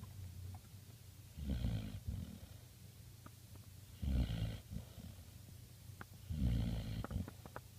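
A sleeping puppy snoring: three snores, each under a second long, about two and a half seconds apart.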